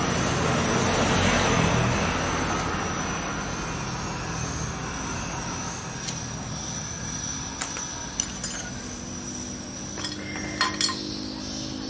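Small metal engine parts clinking against each other as they are handled and fitted into an open motorcycle crankcase: a handful of short, sharp clinks, mostly in the second half, the loudest close together near the end, over a steady background hiss.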